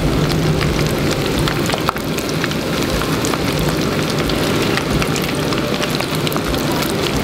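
Small starch-dusted fish deep-frying in a pot of oil, a steady dense sizzle full of small crackles and pops. It is the good frying sound that shows the oil has come up to temperature.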